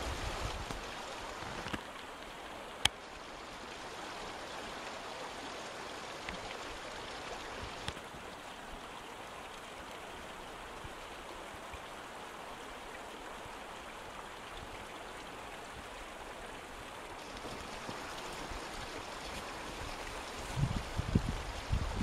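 Small seasonal waterfall running steadily down a rock cliff, a constant splashing trickle of water. A single sharp click about three seconds in, and dull low thumps near the end.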